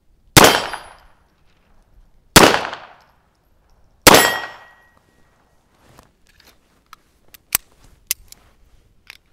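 Three single shots from a FEG PA-63 pistol in .32 ACP (7.65×17 mm), about two seconds apart, with a short metallic ring after the third. A few quieter sharp clicks follow near the end.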